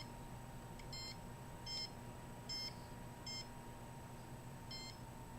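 Handheld microwave (RF) meter giving short electronic beeps at irregular intervals, roughly one a second, as it responds to the radiation it is picking up. A faint steady hum runs underneath.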